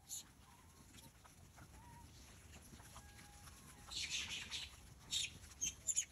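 Troop of macaques calling while they feed: faint short chirps early on, then a cluster of loud high-pitched squeals about four seconds in and a few more short ones near the end.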